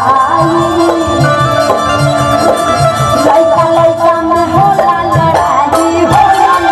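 A woman sings a Bhojpuri folk song live into a microphone, backed by a band with a steady drum beat and a sustained reedy melody line.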